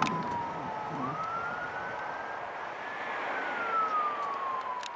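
Emergency-vehicle siren wailing, its pitch falling slowly, rising again about a second in, then falling once more. A couple of sharp clicks, one at the start and one near the end.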